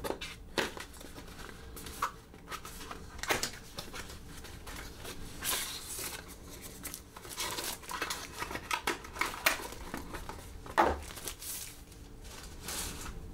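Cardboard packaging handled by hand: a box's inner tray is slid out of its sleeve with scraping and rustling, and a few light knocks come as a plastic carrying case is taken out.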